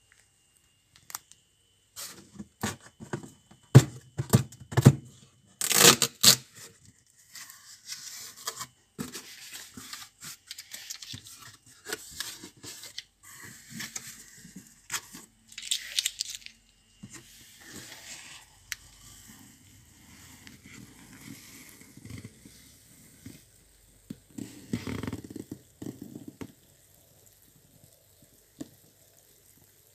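Packing tape being ripped off a cardboard box in several sharp tears, the loudest about six seconds in, followed by quieter rustling and scraping of cardboard flaps as the box is opened.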